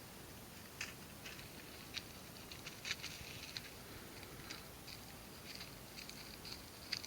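Faint, irregular light clicks and rustles over a quiet steady hiss, about a dozen small ticks spread through, the clearest near 1, 3 and 7 seconds in.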